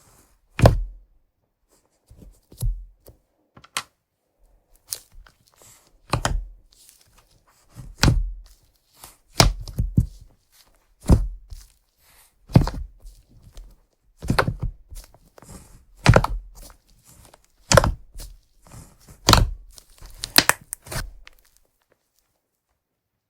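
Slime being squished and pressed by hand: a series of sticky thuds with crackling and popping, about one every one and a half seconds, stopping shortly before the end.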